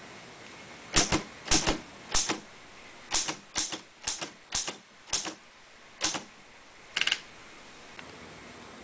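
Manual typewriter being typed on: about ten separate keystrokes at an uneven pace, each a sharp clack of the typebar striking the paper on the platen.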